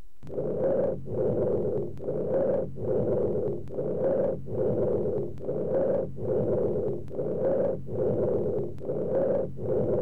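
Bronchial (tracheal) breath sounds heard through a stethoscope: a loud, high-pitched, blowing sound on inspiration and expiration alike, the phases about equal in length with a short gap between them, repeating in a steady rhythm of about three blows every two seconds. Over the lung rather than the trachea, this sound is the sign of consolidation, the tracheobronchial sound carried through without losing its higher frequencies.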